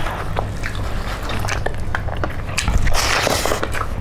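Close-miked eating: chewing and biting of chicken feet and rice, with many wet mouth clicks and smacks and a louder noisy rush about three seconds in.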